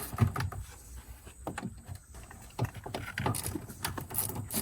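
Scattered light clicks and rattles of a socket wrench and small metal parts as fasteners are worked loose.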